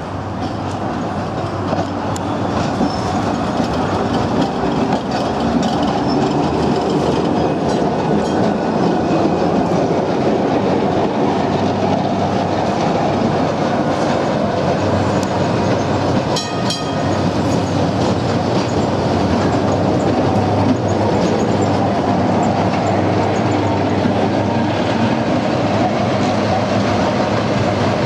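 Vintage electric trams running on steel rails: wheels rumbling and clicking over the rail joints, with a steady motor hum. A brief clatter of sharp clicks about halfway through.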